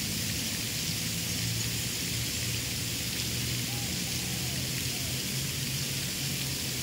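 Steady outdoor background hiss with a low hum underneath and a few faint short chirps.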